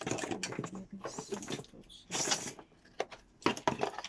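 Cables and plastic connectors being handled and plugged together: irregular clicks and rustling, with a louder rustle about two seconds in.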